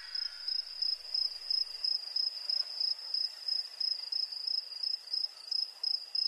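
Cricket chirping sound effect: one high, steady chirp repeating about three times a second.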